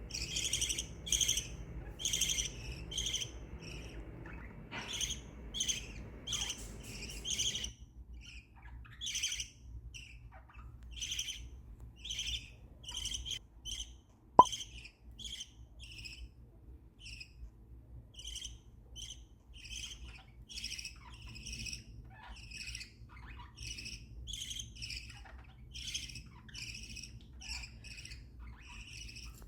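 Small pet parrots chirping, with a steady run of short, high calls about one or two a second. A single sharp click about halfway through stands out above the calls.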